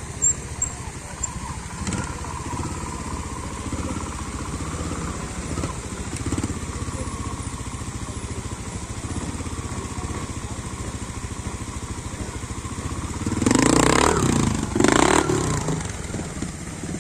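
Trials motorcycle's single-cylinder engine running at low revs with a steady pulse, riding slowly down a steep section. About thirteen seconds in it is revved hard twice, in two short bursts a second or so apart, as it climbs a steep bank.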